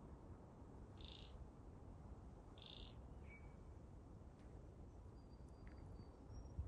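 Near silence over a faint low rumble, broken by two short high chirps about a second and a half apart, a brief lower note just after, and a faint thin whistle near the end, from distant birds.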